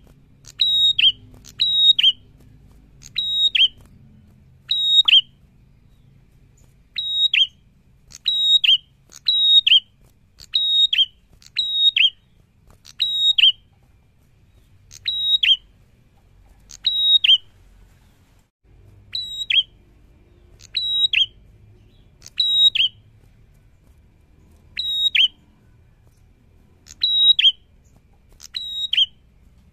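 A caged prenjak, a small rufous-headed tailorbird, calling over and over: sharp whistled notes that each drop in pitch, roughly one a second, in short runs with brief pauses between them.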